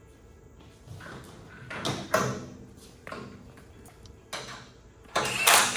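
Scattered metallic clanks of hardware and control-arm parts being handled and fitted, then, about five seconds in, a pneumatic impact wrench starting to hammer the control-arm nuts tight.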